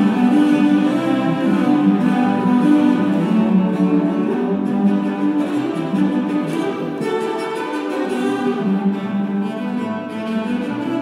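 An ensemble of eight cellos playing together, several lines of bowed notes moving at once in the instrument's middle and low range, steady in loudness.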